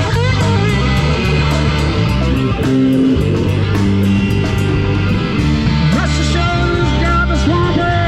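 Rock band playing: guitar with held and sliding notes over bass and a steady drum beat.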